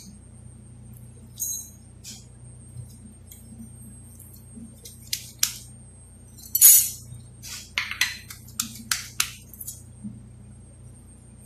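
A metal knife clinking on a small plate and tapping on a cutting board while butter is scooped and worked into a raw leg of lamb. The clicks are sharp and scattered, most of them in the second half, the loudest about two-thirds of the way through. A low steady hum runs underneath.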